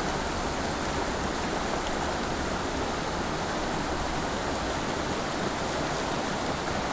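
Small mountain creek running: a steady rush of flowing water.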